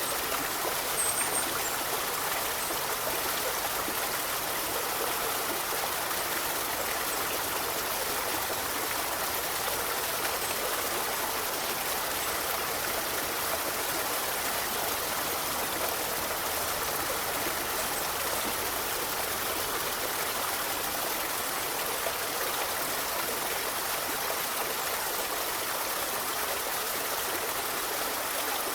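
A forest river flowing: steady rushing and trickling water. A brief faint high chirp about a second in.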